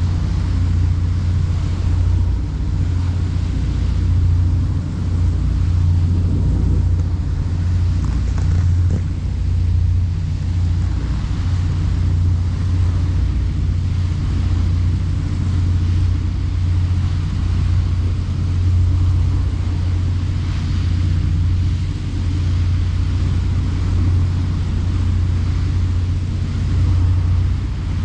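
Boat engine running steadily under way, a loud, even low drone.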